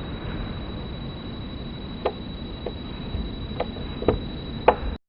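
Edited-in outro sound effect: a steady hiss with a thin, high, steady tone running through it and five scattered clicks, like old film-reel crackle, cutting off suddenly near the end.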